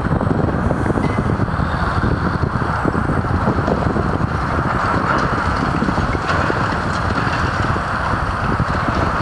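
Steady highway traffic noise with wind buffeting the microphone.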